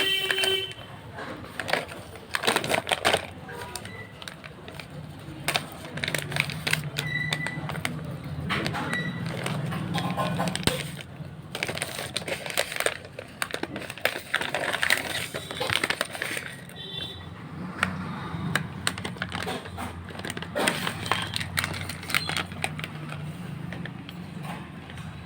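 M&M's candy packaging being handled and opened: irregular crinkling and clicking, with small candies rattling against each other.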